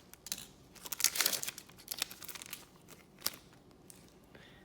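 A trading-card pack wrapper being torn open and crinkled, with a dense stretch of crackling about a second in and a few sharp crinkles after.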